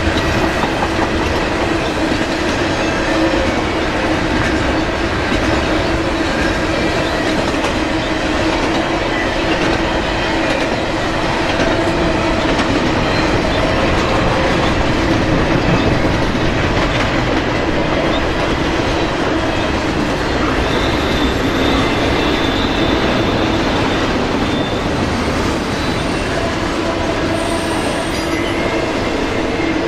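Freight train cars rolling past, steel wheels clattering over the rails with a steady ringing squeal, continuous and unbroken.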